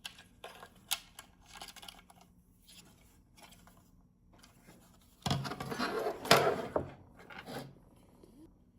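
Plastic housing and internal parts of a GE Simon XT alarm panel being handled and pried apart: a few small clicks, then about two seconds of louder scraping and clicking past the middle.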